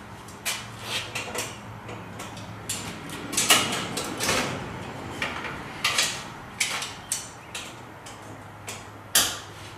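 Irregular clicks, knocks and light rattles of a metal-tube paramotor quad frame being handled and shifted while it hangs from a strap to find its balance point.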